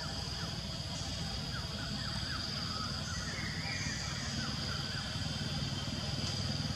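A motor engine running nearby, a low steady rumble that grows louder toward the end, under a steady high insect drone and scattered short chirps.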